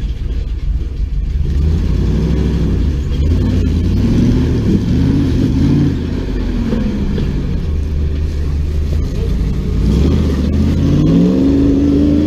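Early Ford Bronco's engine revving up and down as the truck crawls up a steep rock ledge, the pitch climbing in surges a couple of seconds in and again near the end.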